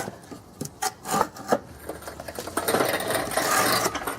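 A loaded engine hoist being pushed over dirt with a blown engine hanging from its chains: scattered knocks and metal clinks, then from a little past halfway a steady scraping rattle as it rolls, stopping just before the end.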